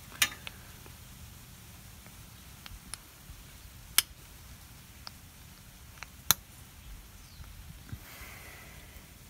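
Hand-fitting of the KTM 690's oil filter cover to the engine case: sparse sharp clicks and taps as the cover and its bolts are handled and pressed into place, the loudest just after the start, about four seconds in and about six seconds in.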